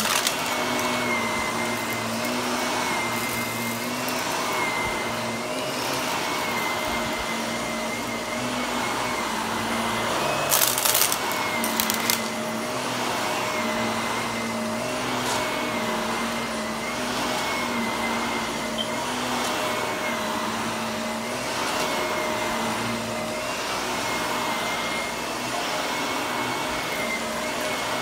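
Shark Navigator upright vacuum cleaner running steadily on carpet, its motor tone wavering slightly as it is pushed back and forth. About a third of the way in comes a brief crackle of debris being sucked up.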